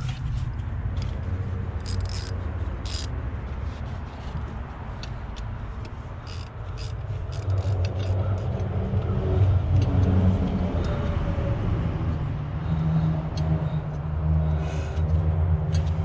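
Small metal parts and tools clinking now and then over a steady low rumble of a motor vehicle, which grows louder about halfway through.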